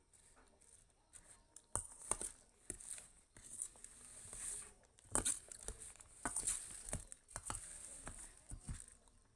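Close-up crunchy eating of puffed rice (mudi) mixed with vermicelli: a run of crisp crunches and clicks from about two seconds in.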